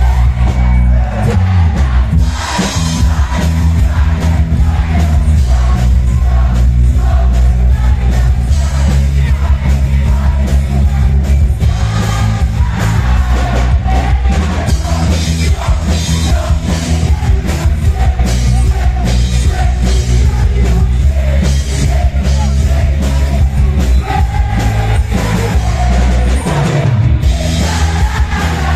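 Loud music through a PA: singers on microphone over a heavy, steady bass beat and drums.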